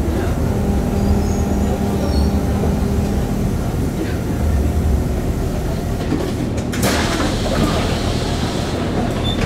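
Running noise inside a light-metro car moving underground: a steady low rumble with a faint steady hum. About seven seconds in, a sudden rush of broad noise comes in and lasts about two seconds.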